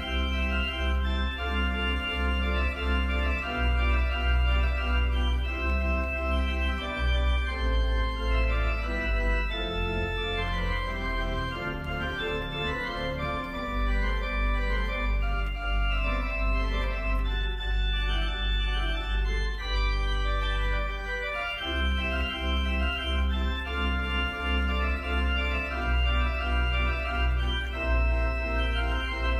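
Church organ playing a postlude after the benediction: slow held chords over deep sustained bass notes, the lowest notes dropping out briefly about a third of the way in.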